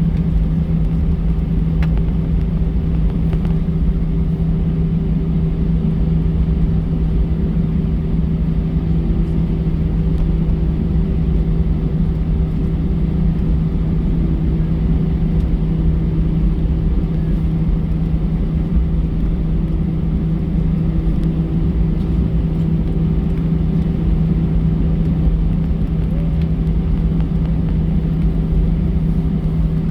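Steady drone inside the cabin of an Airbus A320 with its engines running: a constant low rumble with a held hum, unchanging throughout.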